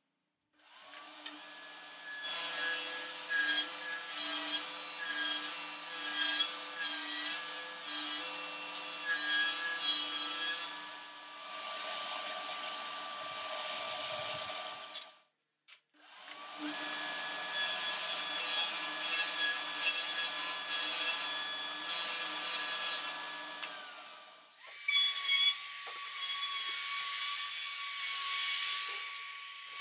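Table saw motor spinning up and running while it rips strips of oak flooring, the cuts coming as repeated surges. There are two runs with a short break between them, each with a rising start and the second with a falling spin-down. From about three-quarters of the way in, a compact trim router runs with a steady high whine.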